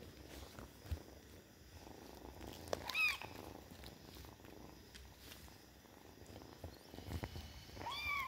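Kittens purring close to the microphone, with two short, high-pitched kitten mews rising and falling in pitch: one about three seconds in, which is the loudest sound, and one near the end.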